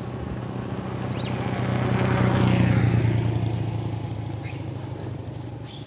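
A motorcycle passing on the road. Its engine hum grows louder to a peak about halfway through, then fades as it goes by.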